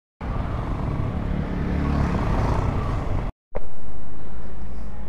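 Suzuki motorcycle engine running steadily under way, with wind rush on the helmet microphone. It cuts off abruptly about three seconds in. After a brief gap a steady low rumble follows and slowly fades.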